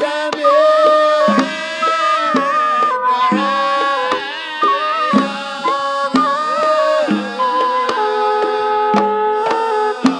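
A Hadrami religious song (inshad) with a sustained melody that moves in steps, over hand drums beating a steady rhythm.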